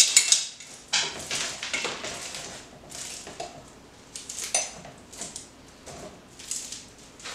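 Handfuls of sticky marshmallow-coated popcorn with hard-shelled candies crunching and rustling as they are dropped and pressed by hand into a metal bundt pan, in short irregular bursts roughly once a second.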